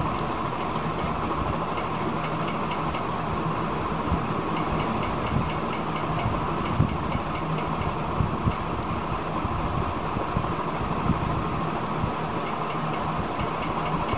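Steady background hum and hiss with a faint low drone, broken by a few faint clicks.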